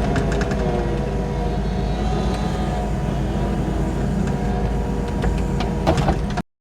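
Kubota 90-2 tracked skid steer running steadily under work, its diesel engine making a continuous low rumble with a faint whine over it. The sound cuts off abruptly just before the end.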